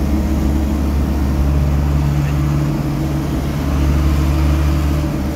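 Vehicle engine and road noise heard from inside the cab while driving: a steady low drone, with a second engine note joining about a second and a half in.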